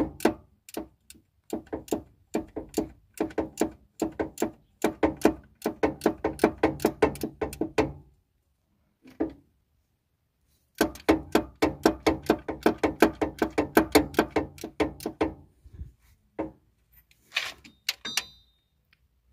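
Ratchet wrench on a 19 mm fitting clicking in two long runs of rapid clicks, worked back and forth while the crankshaft is brought round to take the timing locking pin. A short high metallic ring near the end.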